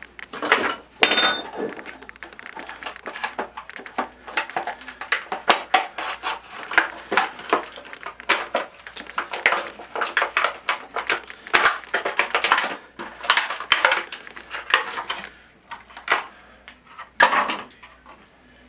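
Hands handling tools, packaging and plastic valve parts close up: a dense run of irregular clicks, clinks and rattles, easing off briefly near the end.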